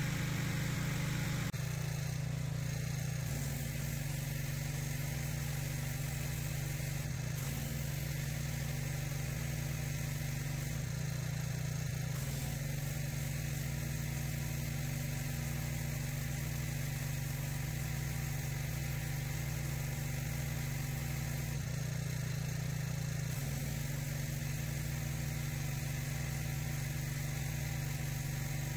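Pressure washer running steadily: a constant engine drone under the hiss of the high-pressure spray jet blasting concrete paving, with the hiss shifting briefly a few times as the wand moves.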